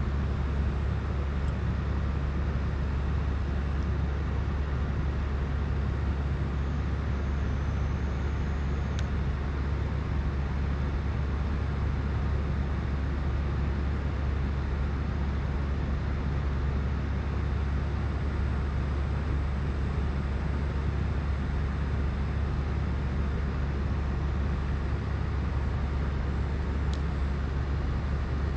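A steady low droning hum with a constant rush of noise over it, unchanging throughout, with a couple of faint ticks.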